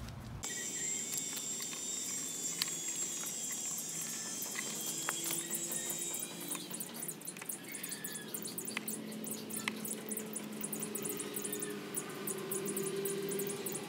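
Small, scattered clicks and ticks of hands stripping and twisting thin speaker wires with pliers. Behind them runs steady high-pitched chirping that grows denser about halfway through.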